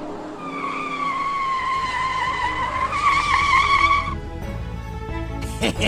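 Cartoon sound effect of car tyres screeching: one long squeal, slowly falling in pitch and wavering near the end, lasting about three and a half seconds before it cuts off. Background music follows, with a short whoosh near the end.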